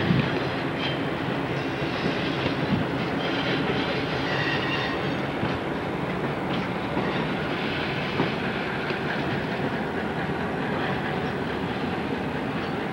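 Passenger train cars rolling past on the track: a steady rumble of steel wheels, with clicks as the wheels cross rail joints and a brief faint wheel squeal about four seconds in.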